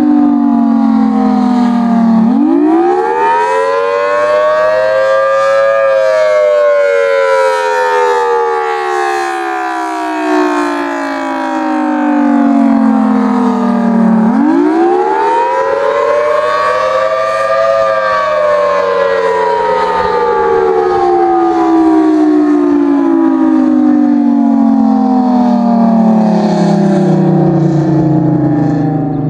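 Federal Signal Thunderbolt 1000T rotating outdoor warning siren sounding a wail. The pitch climbs sharply for about three seconds, then falls slowly for about eight, twice over. Near the end it sinks lower as the siren winds down.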